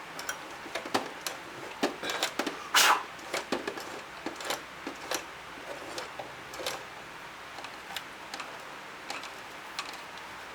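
Singer X5004-HD serger turned over slowly by its hand wheel: irregular light mechanical clicks and ticks from the needle and loopers cycling, with a brief louder rustle about three seconds in.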